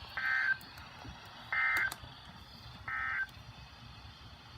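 NOAA Weather Radio SAME end-of-message data bursts through a Midland ER210 weather radio's speaker: three short, harsh digital buzzes about 1.3 seconds apart, the coded signal that closes the warning broadcast.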